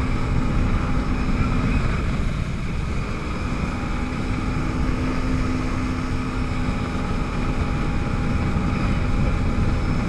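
Yamaha WaveRunner jet ski engine running at speed, its steady note dipping briefly about two seconds in and then coming back. Heavy wind on the microphone and water rushing past the hull.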